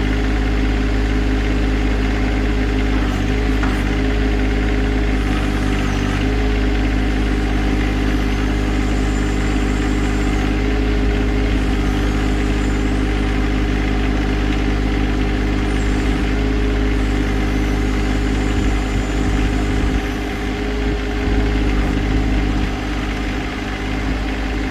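John Deere 2025R compact tractor's three-cylinder diesel engine idling steadily; about 20 seconds in the sound dips slightly and becomes less even.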